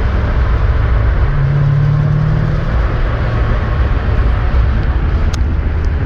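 A car running with a steady low rumble. A short hum rises over it about a second and a half in, and there is a single sharp click near the end.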